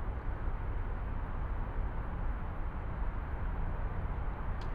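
Steady low rumble of wind buffeting the microphone, with a faint click near the end.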